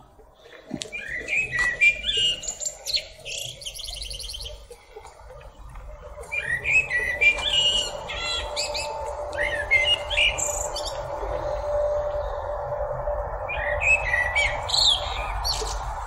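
Male common blackbird singing in three bouts of quick warbled phrases with short pauses between them, over a steady low hum.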